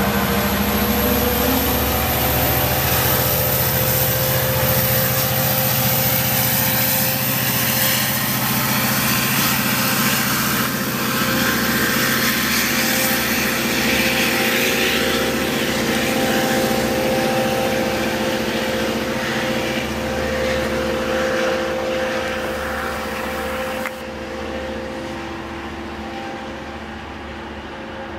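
Diesel-electric locomotive (LIRR DE30AC) at the rear of a departing bilevel push-pull train, its diesel engine running steadily under power as the train pulls away. The sound slowly fades as the train recedes, with a sudden small drop in level near the end.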